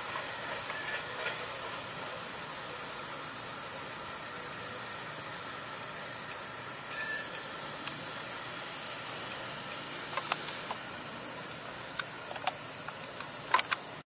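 Steady high-pitched insect chorus, a fast, even trill. A few faint clicks come near the end.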